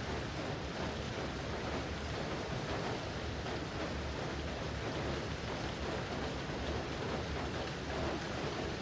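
Steady rainfall: an even, unbroken hiss of rain with a low rumble beneath it.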